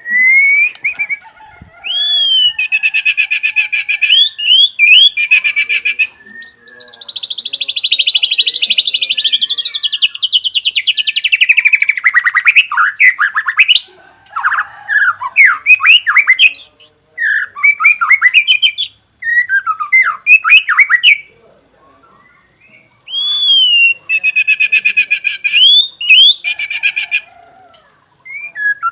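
White-rumped shama singing a long, varied song 'full isian', packed with copied phrases. Loud whistles and fast rattling trills alternate with a long falling buzzy trill and quick runs of chirps, split by short pauses; the opening whistle-and-trill phrase comes back near the end.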